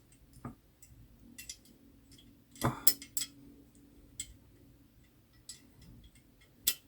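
Small metal airgun parts and hand tools clicking and tapping while a part is worked into its hole during a rebuild. The clicks are scattered and uneven, the loudest about a third of the way in and near the end.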